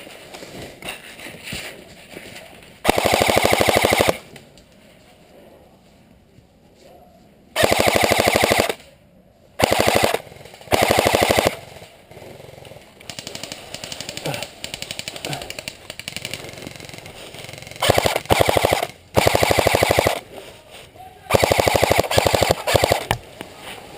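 Airsoft rifle firing on full auto in about seven bursts, the longest over a second, each a fast even rattle of shots. Fainter rapid fire from other airsoft guns runs between the bursts.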